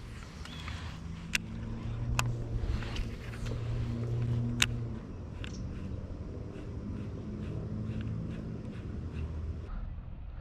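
A motor running with a steady low hum that swells for a few seconds and then eases, with a few sharp clicks over it.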